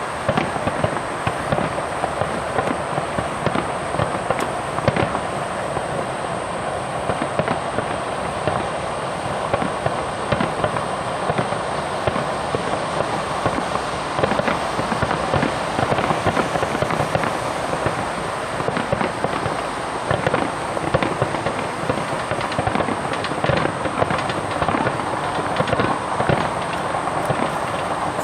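Fireworks display going off: a dense, continuous run of pops and crackles without a break.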